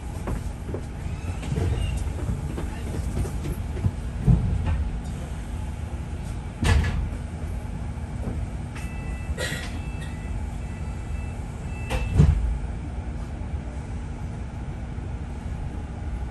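Inside a double-decker bus on the move: a steady low rumble of engine and road, with loose rattles and knocks now and then, the loudest about four, seven and twelve seconds in. A faint high tone sounds for about three seconds just past the middle.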